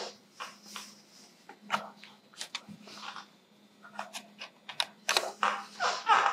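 Scattered clicks and rustling, handling noise that grows busier near the end, over a faint steady hum.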